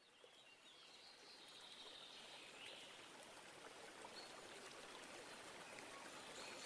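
Near silence: a faint hiss that slowly grows louder, with a few faint high chirps in the first few seconds.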